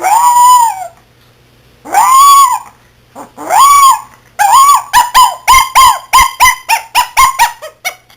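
Chihuahua puppy's own odd vocal noise: three long cries that rise and fall in pitch, then a quick run of short ones at about three a second, growing shorter and softer near the end.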